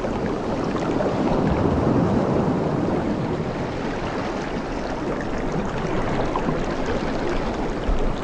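Ocean surf washing steadily, with a gentle swell about two seconds in.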